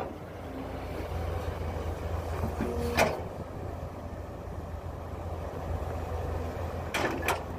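Heavy diesel machinery, an excavator and dump truck at work, running with a steady low rumble. A sharp knock comes about three seconds in and two more close together near the end.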